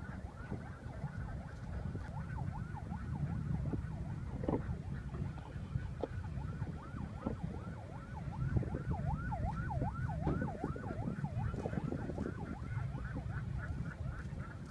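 Wind rumbling on the microphone under a rapid run of short, high chirping calls that swoop down and up, several a second, thickest in the second half.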